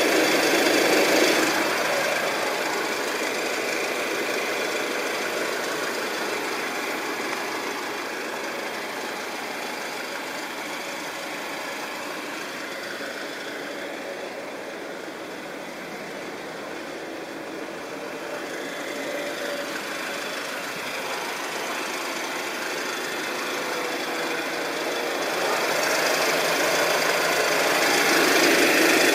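Jeep Wrangler engine idling, recorded from underneath the vehicle for an abnormal engine noise. It is louder near the engine at the start and end, and quieter midway as the microphone passes the rear of the vehicle.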